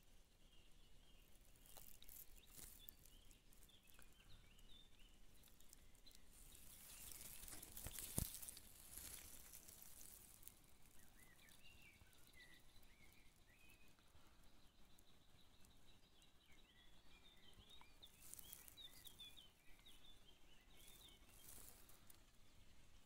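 Near silence with faint outdoor ambience: small birds chirping faintly now and then. About eight seconds in there is a brief rustle ending in a single sharp click.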